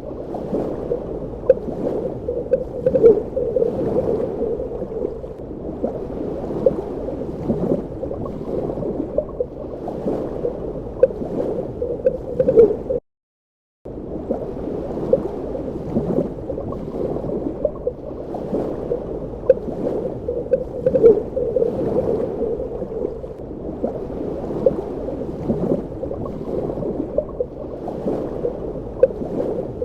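Underwater ambience: a steady, muffled wash of water with frequent small gurgles and bubble pops. It drops out to complete silence for under a second about thirteen seconds in, then carries on as before.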